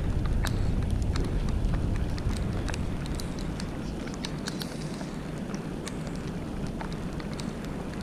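Wind buffeting the microphone as a low rumble that eases after about two and a half seconds, with scattered sharp ticks throughout.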